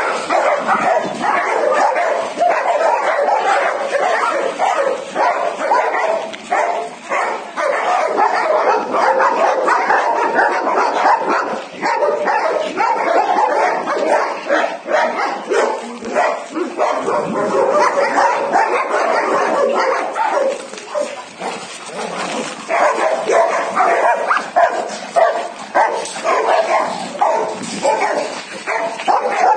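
Dogs barking and yipping without a break, several at once, with some whimpering among the barks.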